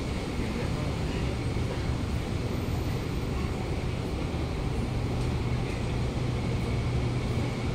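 Steady low hum and rumble inside a stationary Kawasaki Nippon Sharyo C751B metro car standing at a platform: the train's onboard equipment running while it waits, with no traction motor sound.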